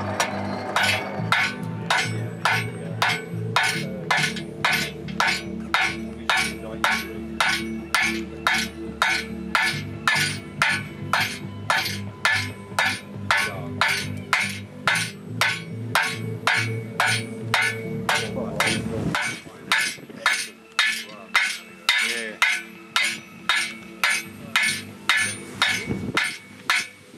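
Hand hammer striking red-hot steel bar on a steel anvil in a steady rhythm of about two blows a second, drawing the bar out to a point. A steady low hum runs underneath and stops about two-thirds of the way through.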